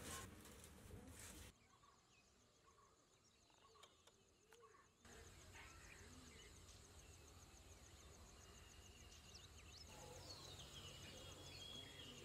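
Faint crackling of a wood fire burning in a clay stove for the first second and a half. Then quiet rural ambience with a steady high, pulsing trill and scattered bird calls near the end.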